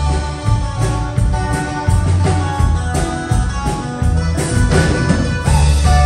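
Live band playing an instrumental passage with no singing: a drum kit keeping the beat under strummed guitars, with steady low bass notes.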